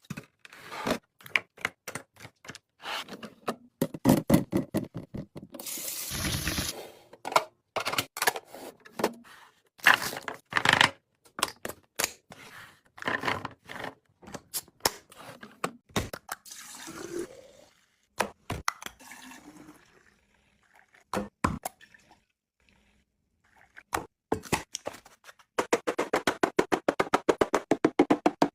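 Food containers, bottles and packaging being handled, opened and set down while a fridge is restocked: a string of clicks, taps and scrapes, with a run of rapid, even clicks near the end.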